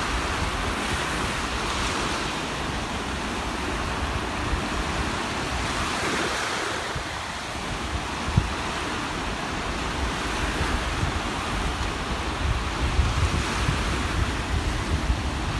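Mediterranean sea waves breaking and washing over the shallows in a steady surf wash that swells every four to five seconds, with wind rumbling on the microphone. A short thump about eight seconds in.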